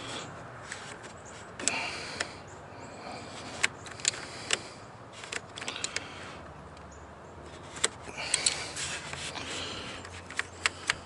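Pliers and small metal parts clicking and clinking irregularly as a nut is worked loose, between stretches of handling noise.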